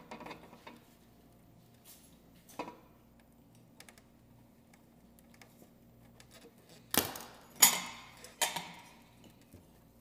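Metal tools and ceiling fan hardware clinking and clanking while being worked on, a few scattered clinks early, then three louder clanks in quick succession between about seven and eight and a half seconds in.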